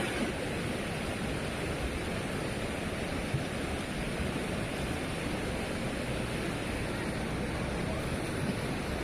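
Steady noise of flowing river water.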